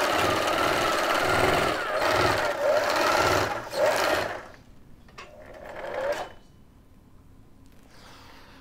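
Electric sewing machine running at speed, a dense fast rattle whose pitch wavers with the motor speed, stopping abruptly about four seconds in and leaving faint room sound.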